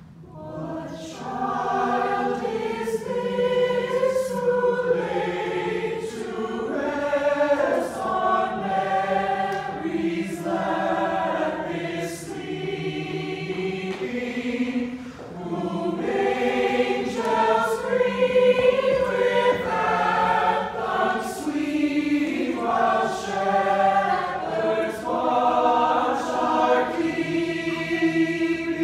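Mixed choir of about twenty men's and women's voices singing a song together in harmony.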